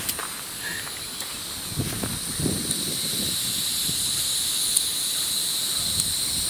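Steady high-pitched chirring of insects, with gusts of strong wind buffeting the microphone now and then.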